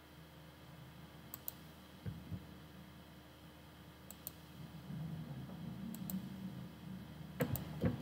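Computer mouse button clicking: a few sharp clicks, mostly in quick pairs, a second or two apart, over a faint low hum.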